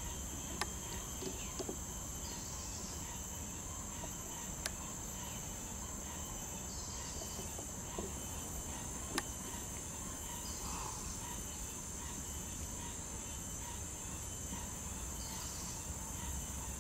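Insects keeping up a steady high-pitched drone, with a short higher call about every four seconds and a few sharp clicks.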